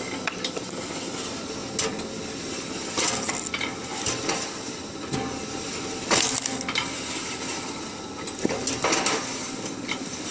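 Homemade motor-driven crank firewood splitter running, with a steady mechanical hum under repeated metallic clanks and cracks as the steel pusher plate drives wood blocks onto the wedge and split pieces clatter onto the steel table.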